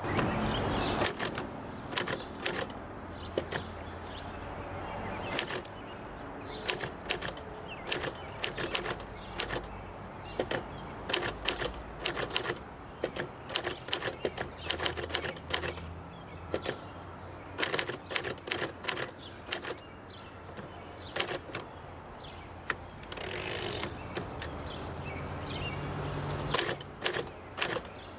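1951 R.C. Allen 600 manual typewriter being typed on: an irregular run of type-bar strikes clacking against the platen, with one longer noisy sweep near the end.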